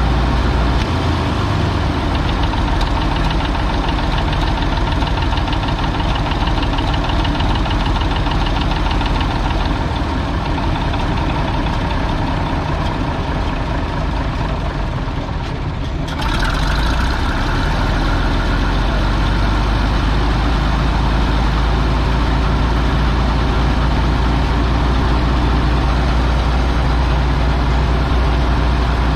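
Large engine running steadily at idle, with a short dip and then a step up in level about sixteen seconds in.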